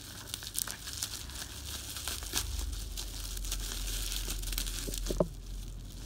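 Plastic parcel packaging and bubble wrap crinkling and tearing as a parcel is opened by hand, with many small crackles. A brief rising squeak sounds about five seconds in.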